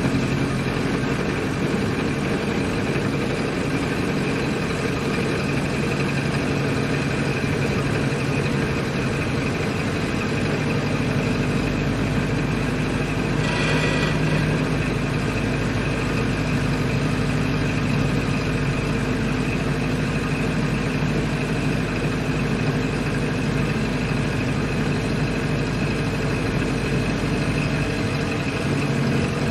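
1928 Ford Model A's four-cylinder engine running steadily as the car is driven, with a brief noisy burst about fourteen seconds in.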